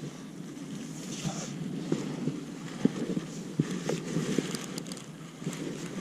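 Wind buffeting the microphone, with scattered small clicks and crackles.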